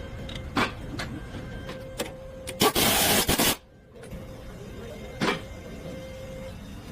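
Scattered sharp clicks and knocks of tool work on a car's steering linkage. About two and a half seconds in there is a loud burst of noise lasting about a second, and near the middle there is one more knock.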